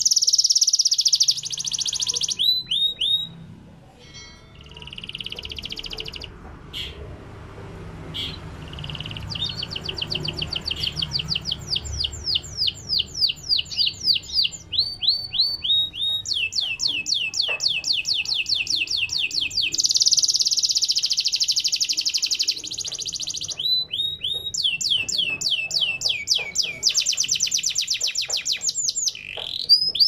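Yellow domestic canary singing: fast trills of quickly repeated, downward-sweeping notes, with long buzzing rolls at the start and again about two-thirds of the way in, and a short lull with only scattered notes a few seconds in.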